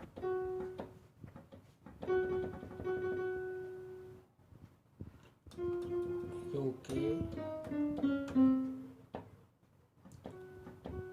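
Piano-voiced notes played from a Nektar Impact LX49 MIDI keyboard during a key test. The same note, near F-sharp above middle C, sounds several times with silent gaps, and a few lower notes step down in the middle. The key sometimes fails to trigger a note, a sign of a faulty contact under its rubber pad.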